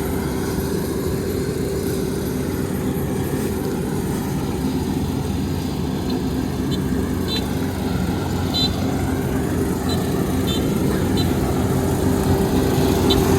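Kubota ER470 combine harvester's diesel engine running steadily, a little louder near the end. A few faint, short high ticks come in the second half.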